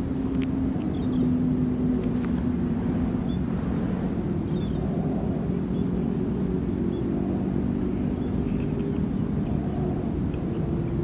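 A steady low engine drone whose pitch wavers slightly, with a few faint high chirps and a couple of light clicks.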